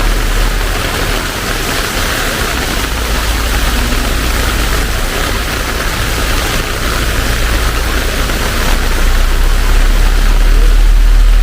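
Heavy rain pouring steadily, with a low rumble underneath that grows louder near the end.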